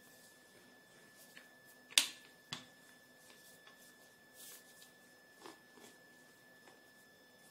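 Stainless steel rolling pin working dough on a pastry board: a sharp knock about two seconds in, a second about half a second later, then softer clicks and brief scraping as it rolls.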